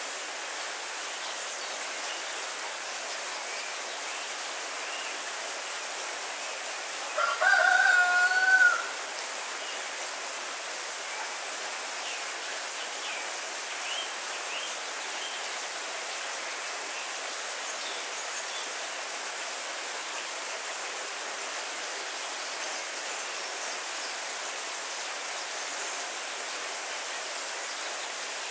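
Steady heavy rain falling on the countryside. About seven seconds in, a rooster crows once for about a second and a half, the loudest sound.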